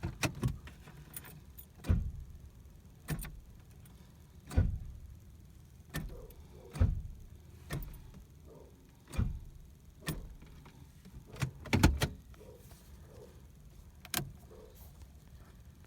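About a dozen scattered clicks and knocks from the key and handling inside a car, with no starter cranking and no engine running: the car is dead when the key is turned.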